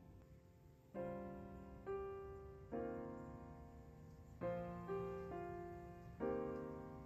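Background piano music: gentle chords struck roughly once a second, each left to ring and fade.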